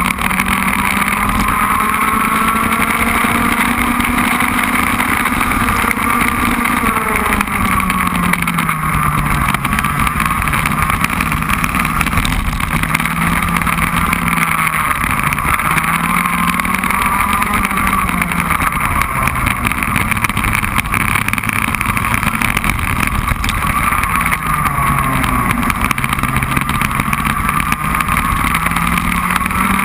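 Racing kart engine running at race pace, its pitch climbing as it accelerates and dropping off as it slows, over and over through the lap.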